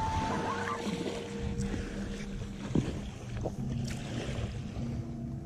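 Wind buffeting the microphone over small waves lapping a sandy shore, a steady low rumbling noise.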